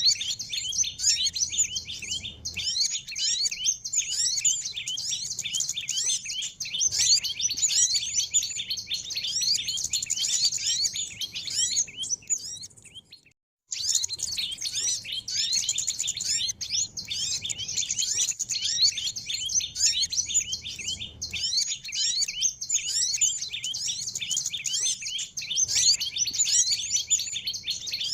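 Dense chorus of many small songbirds chirping and twittering rapidly and high-pitched, a bird-lure (pikat) recording for drawing in small birds. It cuts out briefly to silence about halfway through, then resumes.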